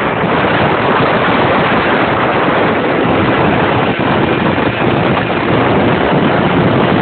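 Steady heavy wind rush on the microphone of a motorcycle moving at speed, with the engine sound buried in it.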